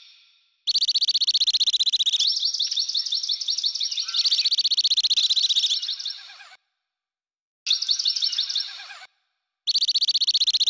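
Rapid, high-pitched chirping trills in several spells that start and stop abruptly, with two short silences in between.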